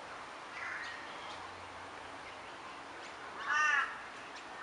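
A crow cawing: one loud, harsh call about three and a half seconds in, over faint outdoor background.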